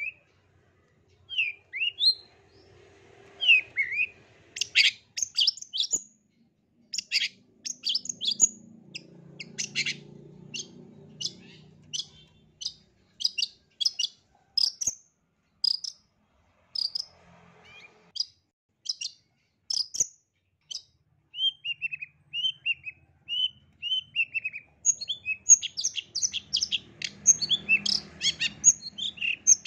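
Long-tailed shrike (cendet) singing: a string of short, sharp high notes spaced about a second apart, then a run of falling notes, then a faster, denser flurry of notes near the end.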